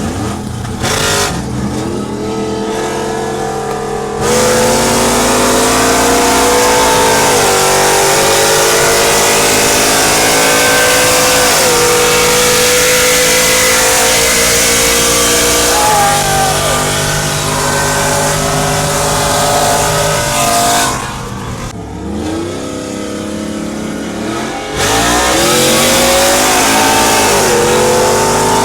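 6.2-litre V8 truck engine with full bolt-ons at wide-open throttle in a roll race, pitch climbing through the gears with a drop at each upshift, about four shifts. It lets off near the end, then pulls hard again.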